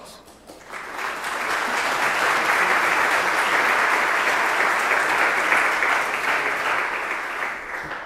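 Audience applauding, building up about a second in, holding steady, and dying away near the end.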